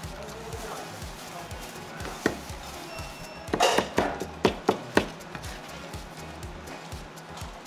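Steel cleaver chopping braised fatty pork on a cutting board. There is one chop about two seconds in, then a quick run of about six chops between three and a half and five seconds in.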